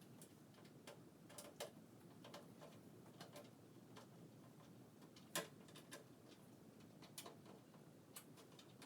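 Faint, scattered small clicks and taps of hands working on a computer case and its parts, with one sharper click about five seconds in.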